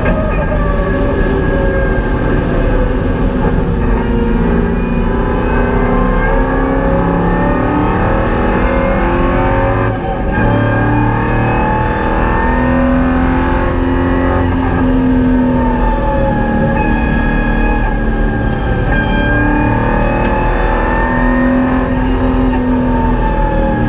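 Holden VY Commodore's LS1 V8 engine heard from inside the cabin at racing pace on track, its pitch climbing and falling again and again through the revs. There is a brief drop about ten seconds in.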